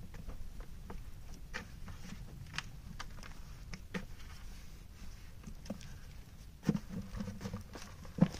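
Hands working wet clay in a plastic bucket, making small irregular pats and squelching clicks, with a couple of louder knocks near the end.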